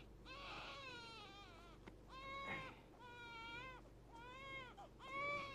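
An infant crying in about five drawn-out wails, each around a second long, fairly faint.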